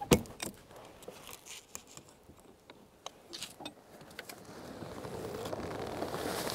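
Buckles and straps of a hard-shell rooftop tent clicking and knocking as it is unfastened, with one sharp click at the start the loudest. Past the middle a rustle of tent fabric builds as the shell is lifted open.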